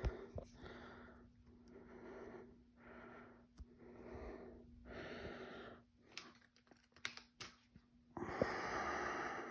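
A person breathing in short, wheezy breaths, about one a second, after a dry hit from a disposable vape. Then a few light clicks, and near the end one longer, louder breath.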